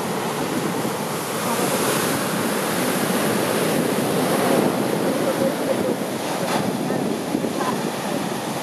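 Heavy storm-swell surf breaking and washing in, a continuous rushing roar that swells about two seconds in and eases after about five, with wind on the microphone.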